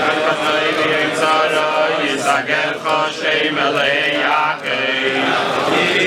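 A large crowd of men chanting a Hebrew psalm together in unison, many voices overlapping, dipping briefly between phrases.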